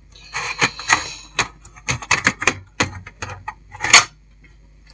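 Sheet-metal top cover of a satellite receiver being worked loose and lifted off its chassis: a rapid run of clicks, scrapes and rattles, with a sharper knock near the end.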